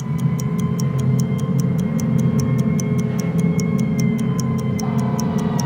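Title music: a steady clock-like ticking, about four ticks a second, over a low sustained drone with held tones above it. A further held note comes in near the end.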